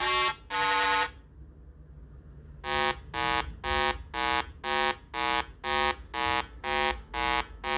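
Electronic buzzer beeping: a buzzy beep ends about a second in, then after a short pause a steady run of short beeps follows, about two a second.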